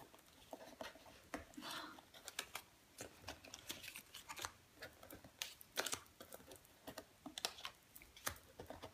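Small paper and clear plastic die-cut ephemera pieces being handled and sorted by hand: faint, scattered clicks and rustles of paper and plastic.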